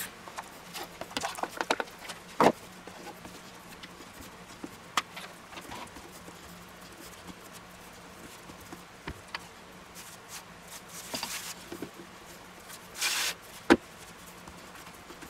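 Hands pressing and patting pizza dough out on a floured wooden board: scattered soft taps and knocks with a few brief rustles, over a faint steady hum.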